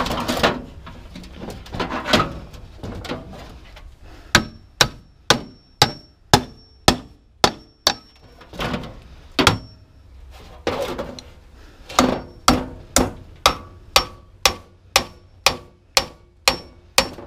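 Hammer striking a sheet-metal squirrel-cage blower housing to drive the blower motor loose, in steady blows about two a second, each with a short metallic ring. The blows come in two runs with a pause of about two seconds between them; softer handling knocks come before the first run.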